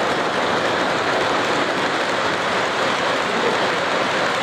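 O gauge model freight cars rolling past on three-rail track, making a steady, even noise of many wheels running on metal rail.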